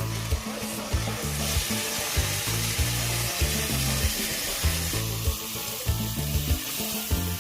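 Food sizzling as it fries in hot oil, the sizzle swelling up about a second in, over background music with a steady bass line.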